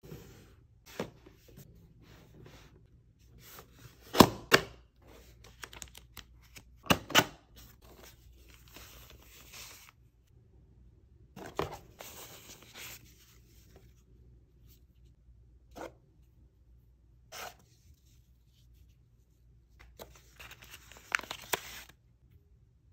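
Cardboard box and its wrapping being opened and unpacked by hand: tearing, rustling and crinkling, with scattered sharp knocks and taps. The loudest tearing comes about four and seven seconds in.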